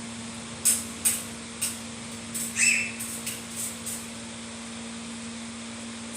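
Spot-welding machine working wire mesh: a string of short hissing snaps, about two a second for the first four seconds, over a steady electrical hum.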